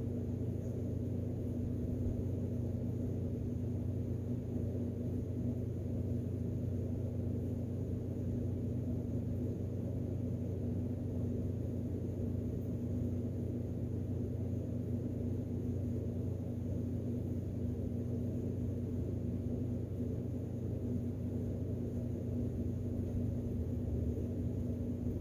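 Steady low hum with a constant tone in it, unchanging throughout, with no other events.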